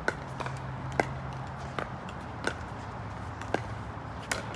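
Pickleball paddles striking a plastic pickleball in a rally: a run of sharp pops about once a second, some louder and closer than others.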